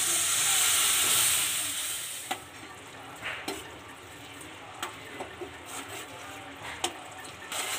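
Water poured into hot oil and spice masala in a stainless steel kadhai sizzles, loudest at first, the hiss dying down over about two seconds to a quieter bubbling sizzle. A metal spoon then stirs the masala, clinking against the pan a few times.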